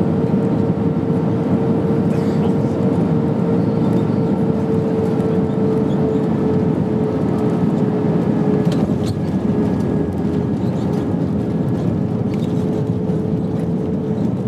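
Cabin noise inside an Airbus A320 during the flare and touchdown: steady engine and airflow noise with a steady hum that sinks slightly. A couple of faint knocks about nine seconds in as the main wheels meet the runway, after which the noise eases a little.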